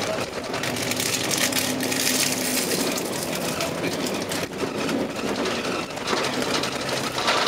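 Engine and road noise of a moving vehicle heard from on board, a steady rumble with a brief hum and a few clicks and rattles.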